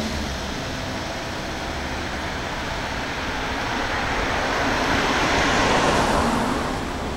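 Passing traffic: the rush of a vehicle going by, swelling to its loudest about six seconds in and then fading.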